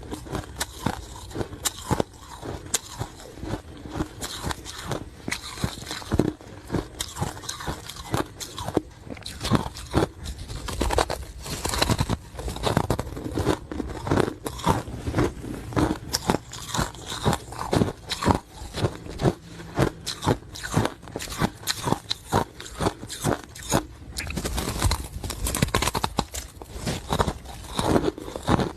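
Ice being bitten and chewed, a steady run of sharp, irregular crunches several times a second.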